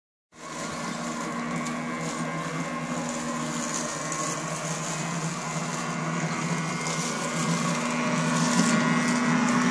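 Robomow RM510 robotic lawnmower running, a steady electric motor whir with a constant hum that grows louder near the end as the mower comes close.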